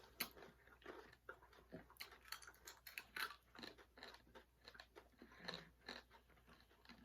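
Close-up crunching and chewing of candy-shelled chocolate mini eggs: many short, crisp crunches at an irregular pace, faint overall.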